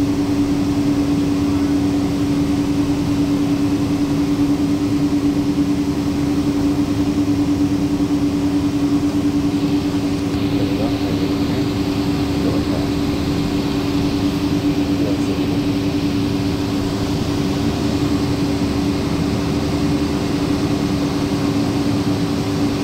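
Inside the cabin of a Boeing 777-200, its Pratt & Whitney PW4000 jet engines are running at taxi idle. The sound is a steady rumble with a pair of constant low hums, and a little more high hiss joins about ten seconds in.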